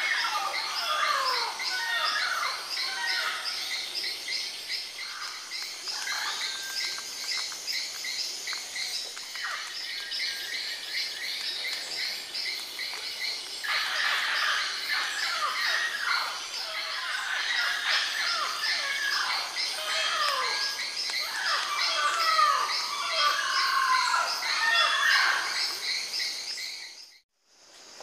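Rainforest birds calling: many short, falling squawks and chirps overlapping, busier in the second half, over a steady, rapidly pulsing insect chorus. The sound cuts out briefly near the end.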